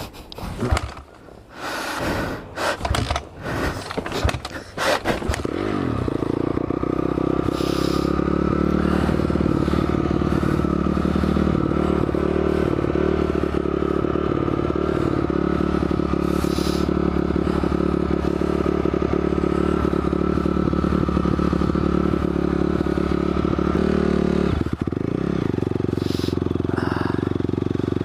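Honda CRF250R dirt bike's four-stroke single-cylinder engine being kick-started: a few irregular clattering kicks, then the engine catches about five seconds in and runs steadily at idle. Near the end the engine note dips for a moment and then settles at a slightly different pitch.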